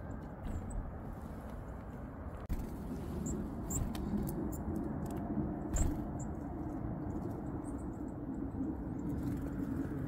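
Scattered faint, very high, short chirps of small tits over a steady low outdoor rumble, with a soft tap just after the middle.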